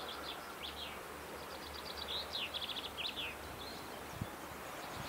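Small birds singing outdoors: quick trills of rapidly repeated high notes and short falling phrases, over a faint low steady hum.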